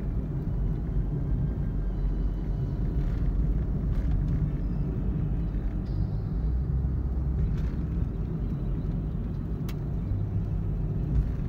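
Steady low rumble of engine and tyre noise heard inside the cabin of a car driving along the road.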